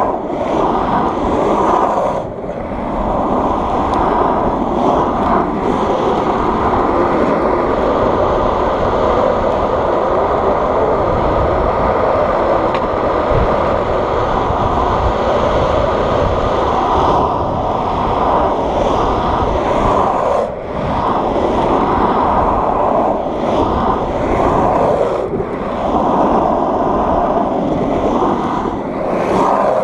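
Longboard's yellow urethane wheels rolling fast over asphalt: a steady, loud roar, briefly dipping a couple of times, with wind buffeting the microphone underneath.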